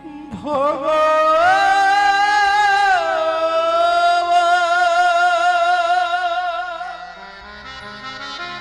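A woman singing a Bengali kirtan phrase with no words: she slides up into a long drawn-out note with a wide vibrato, steps down once, and lets it fade about seven seconds in, over steady instrumental accompaniment.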